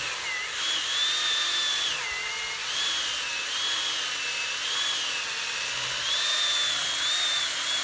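A cordless electric saw whines steadily as it cuts into a tree trunk. Its pitch wavers up and down and drops sharply about two seconds in as the blade loads up in the wood.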